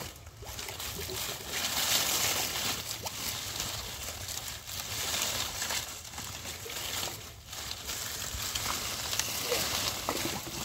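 Rustling and crackling of dry water hyacinth leaves as hands push through the plants, with water sloshing in the shallow muddy water beneath.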